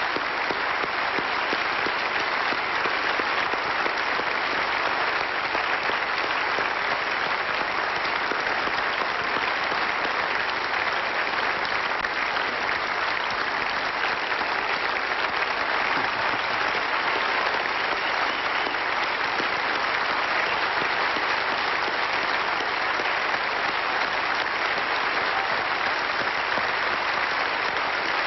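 Large audience applauding, a steady dense clapping that neither swells nor fades.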